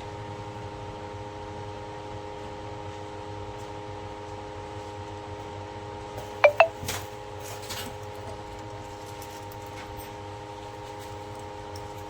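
Steady electrical hum made of several fixed tones, with two quick, sharp metallic clinks in a row about six and a half seconds in.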